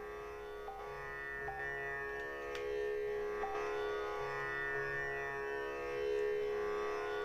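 Tanpura drone, its strings plucked in turn, roughly one a second, over a steady ringing shimmer of overtones. It is tuned to Sa at the first black key (C#) as the reference pitch for singing.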